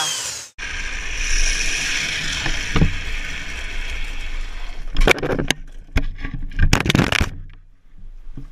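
Wind rush and tyre noise from a helmet camera on a rider going fast down an asphalt road, then about five seconds in a burst of loud knocks and scraping as the rider goes down into the road's edge.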